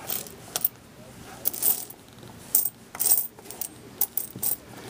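Silver Roosevelt dimes clinking against one another as a hand sweeps and scoops them up on a cloth, in several short bursts of clinks.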